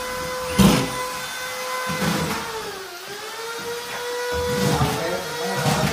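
A high-speed handheld power tool running with a steady whine. Its pitch sags briefly about halfway through and then recovers, as if it is taking load. Two sharp knocks come early on.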